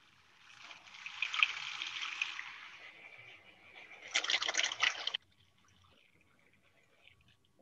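Food processor whirring as it grinds a thick chickpea, oat and tahini burger mixture, heard through video-call audio. It swells about a second in, runs louder in a surge around four seconds in, and cuts off sharply a little after five seconds.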